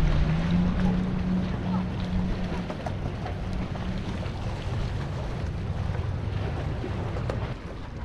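Boat engine running steadily under wind and water noise, its pitch dipping slightly just after the start.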